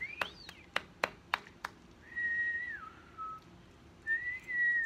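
A person whistling a two-note call to a dog, a held high note dropping to a lower one, given twice, after a few sharp clicks.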